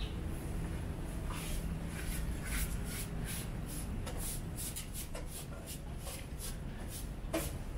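Footsteps scuffing on pavement, about three short steps a second, over a steady low background rumble.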